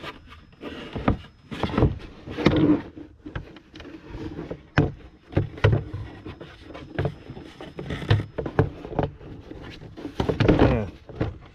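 Hollow plastic intake housing being worked into an engine bay by hand: a run of irregular sharp knocks and clicks as the plastic bumps and scrapes against the surrounding parts.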